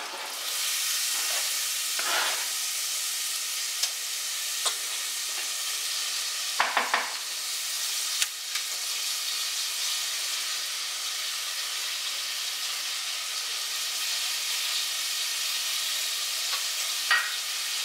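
Diced onion sizzling in melted butter in a stainless steel saucepan, a steady frying hiss that starts as the onion drops into the pan. A few short scrapes and taps of a silicone spatula stirring it.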